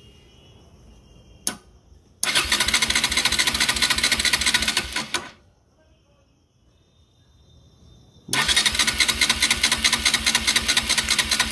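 Bajaj Pulsar NS200's electric starter cranking the single-cylinder engine in two bursts of rapid, even chugging without firing, with a sharp click just before the first. This is a dry compression test with a gauge in the spark-plug hole and the throttle wide open. It reads about 7.5 kg/cm², which is taken as roughly fine.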